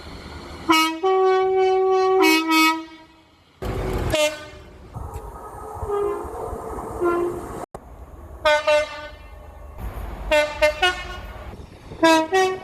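Two-tone horns of British diesel locomotives and multiple units, in several cuts one after another: a long blast switching between a low and a high note, a short loud rush, faint horn notes, then a string of short two-note toots.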